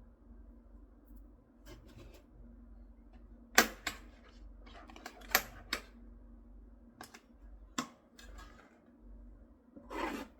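Scattered sharp clicks and knocks of small hard parts being handled, loudest about a third and halfway in, with a longer rustling burst near the end, over a low steady hum.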